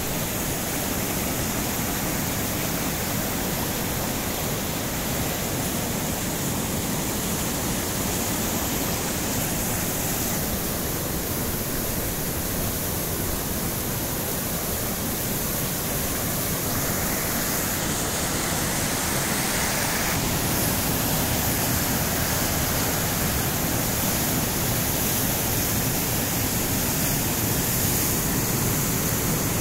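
Floodwater from the overflowing Korana river rushing in a shallow sheet across grass and bare ground: a steady, dense rush of water that grows a little louder in the second half.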